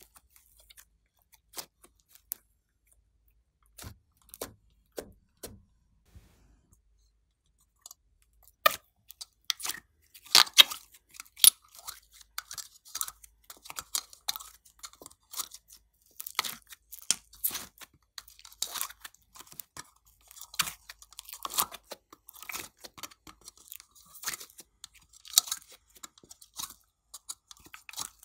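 Glossy slime mixed with clay being squished and pulled by hand, making sticky crackling clicks and pops. Only a few scattered clicks at first, then dense, busy crackling from about eight seconds in.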